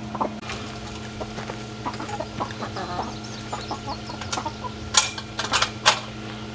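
A flock of chickens clucking with many short calls while they peck at corn. A few sharp clicks or knocks stand out near the end.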